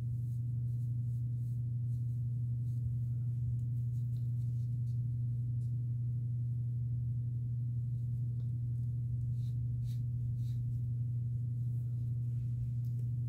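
A steady low hum at one unchanging pitch, like mains hum or a small fan motor, with nothing else prominent over it.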